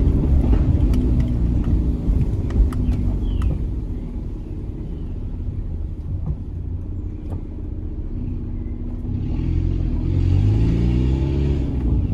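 Peugeot 206 1.4 8-valve four-cylinder engine running through a straight-through exhaust with no catalytic converter, a rumbling exhaust note while driving. It eases off in the middle, then rises in pitch as the car accelerates near the end.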